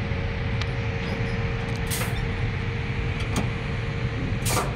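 Heavy diesel engine, likely the truck crane's own, running at a steady idle with a low rumble and a faint steady tone. Over it come a few light clicks and two short, sharp bursts of noise, about two seconds in and near the end, as the cab door is handled.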